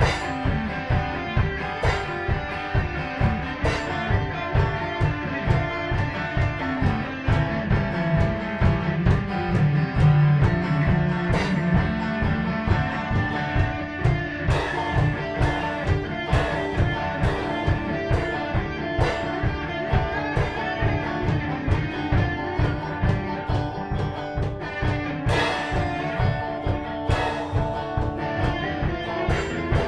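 Live rock instrumental: lead and rhythm electric guitars over a drum kit keeping a steady beat.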